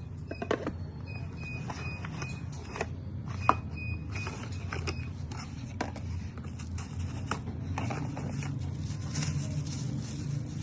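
Scattered clicks and taps of a phone and its packaging being handled, over a steady low hum. A short high beep repeats quickly through the first half, then stops.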